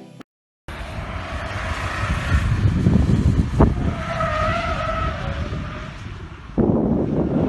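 Jeep Renegade's engine running hard under load with a steady whine and a heavy rumble of tyres working over rough ground. There is a sharp knock about three and a half seconds in and a louder surge near the end.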